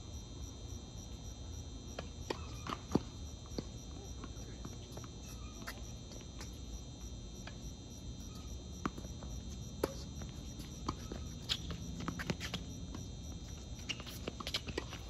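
Crickets chirping steadily, with scattered sharp knocks of a tennis ball bouncing on a hard court and being struck by rackets. The loudest knock comes about three seconds in, and a quicker run of hits comes near the end as a rally gets going.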